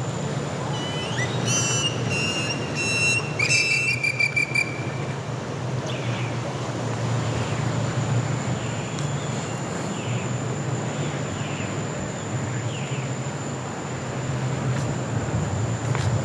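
Birds calling: a burst of loud whistled and rasping notes in the first few seconds, then fainter short falling notes repeated about once a second, over a steady low hum.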